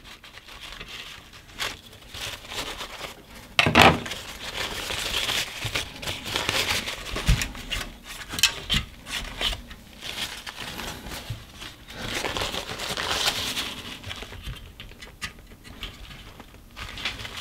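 Irregular rustling, scraping and crinkling as dirt is wiped off the outside of an electrolytic capacitor, with small clicks throughout and one louder knock about four seconds in.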